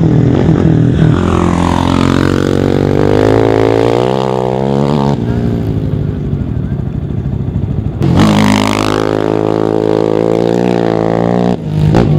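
Off-road race quads and a dirt bike passing at full throttle on a dirt track, engines revving with a rising pitch as they accelerate. The sound breaks off abruptly between passes, twice.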